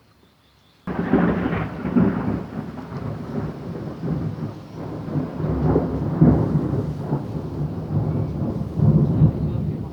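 Rain with a loud, long rolling rumble of thunder that comes in suddenly about a second in and swells and ebbs repeatedly.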